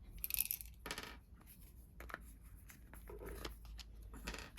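Light clicks, scrapes and small metallic clinks from a Givi toolbox lock being handled and opened up to get at the lock mechanism, with a brief rattle near the start.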